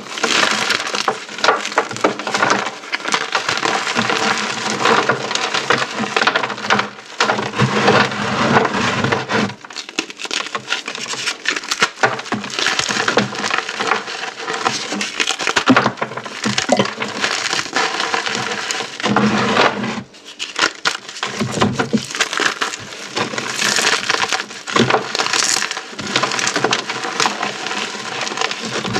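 Dried orbeez hydrogel beads and chalk being crushed: a dense, continuous crackle of many small sharp cracks and crunches.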